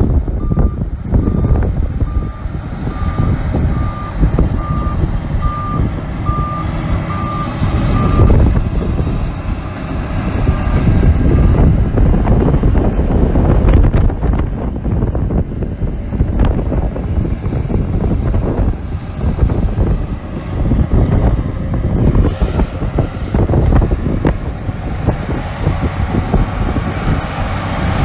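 Shantui crawler bulldozer's diesel engine running under load, with a reversing alarm beeping at a steady pitch a little under once a second for the first eight seconds, then fading to a few faint beeps.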